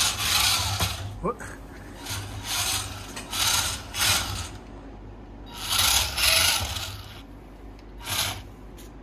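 Small electric drive motor and gearbox of a scale-model RC tractor buzzing in a series of short bursts as it is driven in short runs.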